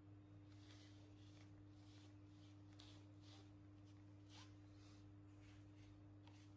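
Near silence: room tone with a steady low electrical hum and a dozen faint, irregular soft scratchy noises.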